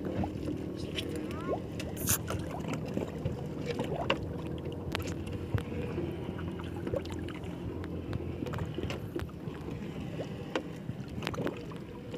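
Water lapping against a wooden outrigger boat's hull, with scattered light knocks and rubbing as the rope to a fish trap is hauled in by hand over the side.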